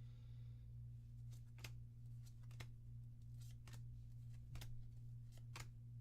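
Trading cards being handled and flipped one at a time, making faint light ticks about once a second over a steady low hum.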